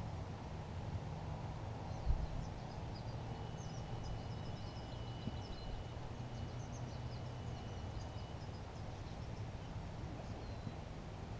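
Small birds chirping in short high calls over a low steady hum, with a thin steady high tone for about five seconds in the middle and a single thump about two seconds in.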